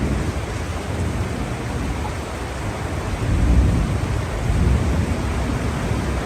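Heavy rain falling steadily in a hiss, under a low rumble that swells twice, about halfway through and again near the end.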